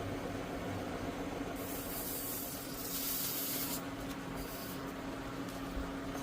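A hiss of spray starts about one and a half seconds in and runs for about two seconds, with a shorter burst a little later, over a steady machine hum.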